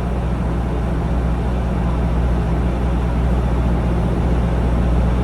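Steady low hum of the ferry boat's engine idling at the dock, with a constant rushing noise over it.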